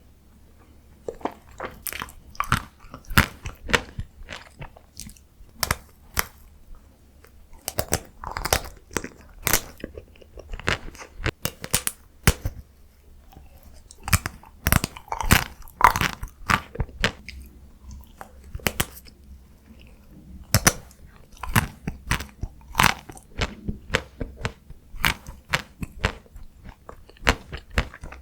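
Close-miked biting and chewing of chocolate-coated Tico ice cream: many sharp, irregular crunches as the hard chocolate shell cracks, between softer chewing sounds.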